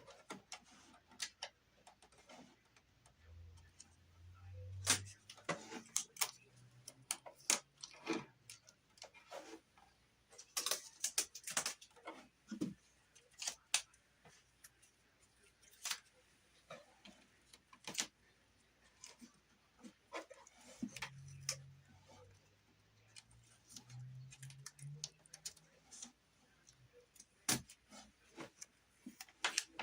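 Scattered light clicks and taps, irregular and in small clusters, from hands working with tape and a ceiling beam.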